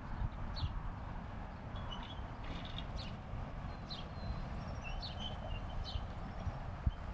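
Small birds chirping, short high calls repeating every half second or so, over a steady low rumble.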